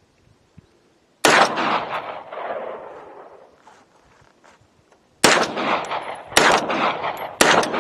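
Gunshots from a 9mm blowback AR-pattern pistol fitted with a tungsten-weighted bolt carrier and a shortened buffer, fired semi-automatically. One shot comes about a second in and its sound trails off over a few seconds. Three more follow about a second apart near the end.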